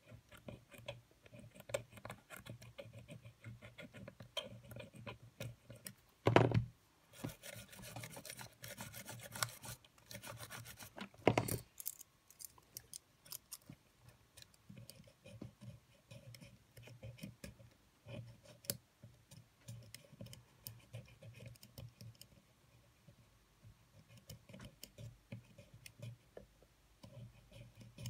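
Small clicks, taps and rubbing of hands and small tools working on the opened mechanism of a Sony EX999 cassette player, with two louder knocks about six and eleven seconds in and a stretch of scraping between them.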